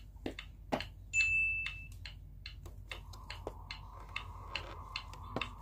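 Light, quick ticks or clicks, about three or four a second, with a short high beep about a second in and a faint steady hum from about three seconds in.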